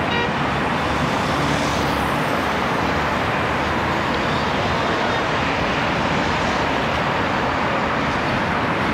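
Steady road traffic noise, with a vehicle horn cutting off right at the start.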